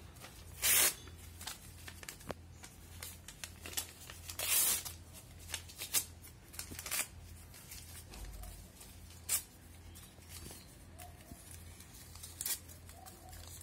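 Old lined notebook pages being torn by hand into small pieces, in short irregular rips. The loudest come about a second in and about four and a half seconds in, the second one longer.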